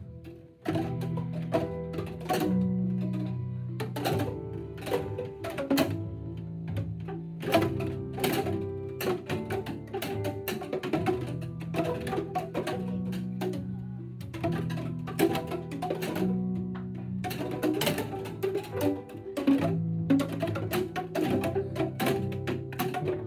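A class of children playing Boomwhackers, tuned plastic percussion tubes, striking them in rhythm over backing music with sustained low notes. The music comes in about a second in.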